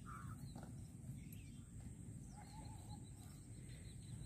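Faint open-air ambience: a steady low rumble with a few faint bird calls, one near the start and a wavering one about halfway through.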